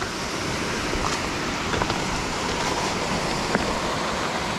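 Steady rush of flowing water below a dam, with a few faint clicks.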